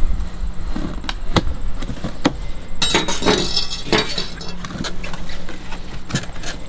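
Cardboard shipping box being cut and pulled open by hand: scattered knocks and clicks, and a short tearing rasp of cardboard and tape just under three seconds in. A knife clinks as it is set down on a glass tabletop about four seconds in.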